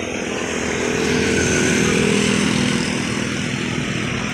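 Road traffic: a motor vehicle's engine passing close by, with tyre and road noise. It swells to its loudest about two seconds in, then eases off.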